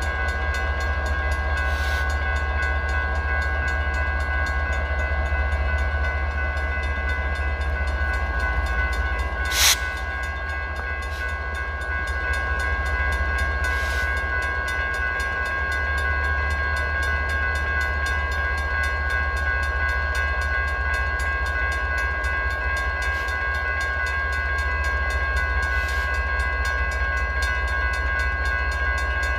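Grade-crossing warning bell ringing steadily while a slow freight train of autorack cars rolls through the crossing with a low rumble. A single sharp clank sounds a little under ten seconds in.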